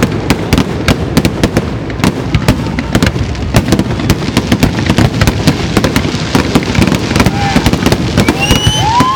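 Fireworks display: a rapid, dense run of bangs and crackles over a steady low rumble. A few wavering whistles rise and fall near the end.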